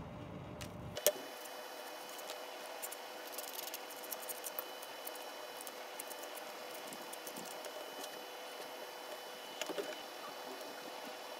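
Thin wooden puzzle pieces clicking and tapping as they are handled and slotted together by hand, with a sharp click about a second in and a small cluster of clicks near the end, over a faint steady hum.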